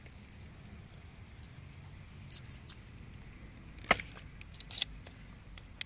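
Fingers handling wet stones in mud and grit: faint squishing and scraping, with a sharp click about four seconds in and two smaller clicks after it.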